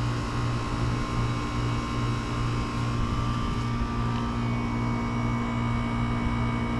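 Outdoor air-conditioner condensing units running: a steady electrical hum from the compressor with the whoosh of the condenser fan. A faint high whine joins about four seconds in.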